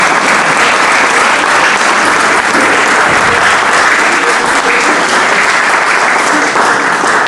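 Audience applauding: loud, steady clapping from many people that keeps up without a break.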